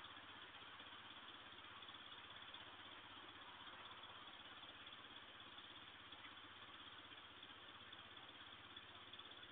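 Near silence: a security camera's microphone hiss with a faint, steady low hum underneath.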